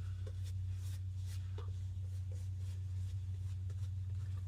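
Steady low electrical hum with faint, scattered small clicks and rustles, like shaving gear being handled between lathering and shaving.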